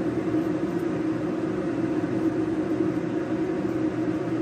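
A steady machine hum with no breaks, such as a running kitchen appliance or fan.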